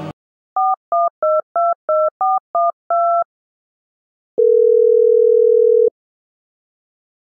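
Phone keypad tones as a number is dialled: eight quick two-note beeps. After a pause comes one long, steady ringing tone about a second and a half long, the sign that the call is ringing through.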